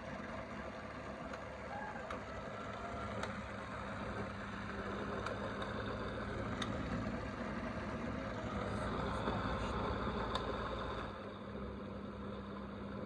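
Zelmer Next jug blender's motor running steadily, blending milk with berries and apple. A few sharp clicks come through it, which the cook takes for a cherry pit knocking about in the jar.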